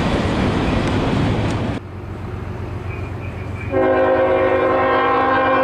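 Freight train cars rolling by with a steady rumble that cuts off suddenly about two seconds in. Then, after a quieter moment, a diesel locomotive's multi-chime air horn starts a long held chord, sounding for a grade crossing whose signals are flashing.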